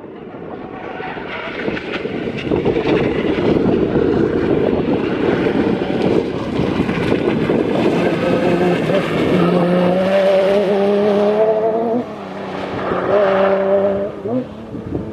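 Off-road race car engine running hard under load, its rough noise building over the first few seconds; the engine pitch then climbs steadily, drops sharply about twelve seconds in, climbs again and falls away near the end.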